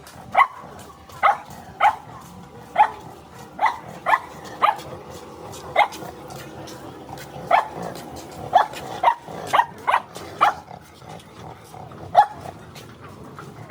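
A dog barking repeatedly, short single barks coming roughly once or twice a second at an uneven pace.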